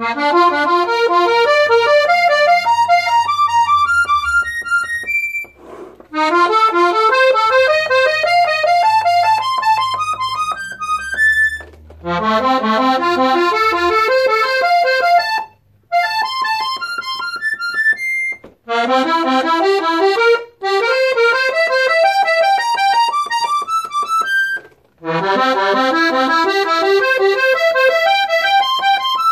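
Melodija Slovenka button box accordion, a three-row diatonic box in B flat, F and C, played one button at a time on push and pull. The notes climb step by step in five rising runs, each a few seconds long, with short breaks between runs.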